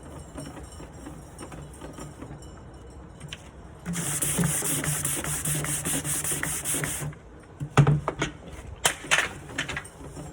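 Sandpaper sanding the wooden front of a nightstand drawer to remove the old varnish, a light sanding with even pressure. It starts about four seconds in as a loud rasping hiss with fast, even strokes, stops suddenly about three seconds later, and is followed by a few sharp knocks and scrapes.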